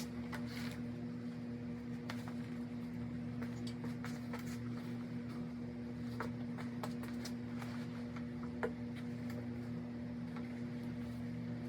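Steady low electrical hum, with scattered light clicks and rustles of handling throughout.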